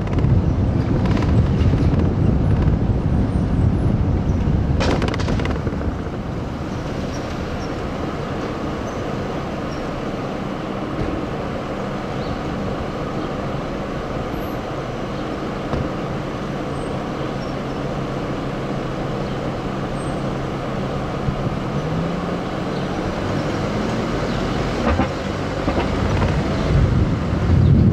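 City street traffic noise with a vehicle engine running: a low steady hum whose pitch rises about two thirds of the way through. Wind rumbles on the microphone at the start and again near the end.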